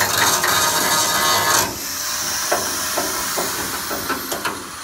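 Oxy-acetylene welding torch hissing loudly against the metal, cutting off sharply about a second and a half in. A few light clicks and knocks follow.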